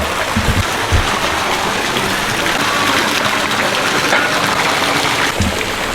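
Steady hiss of falling water, with a few low thumps.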